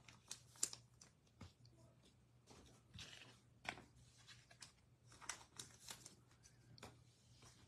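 Faint, scattered clicks and light rustles of trading cards being handled, slid and set down, over a faint steady low hum.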